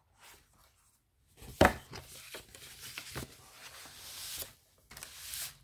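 Items being handled and set down on a table: a sharp knock about a second and a half in, then rustling of paper or packaging with a second tap midway.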